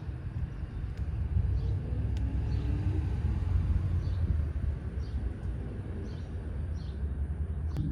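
Running HVAC equipment giving a steady low rumble, with faint short high chirps repeating every half second or so.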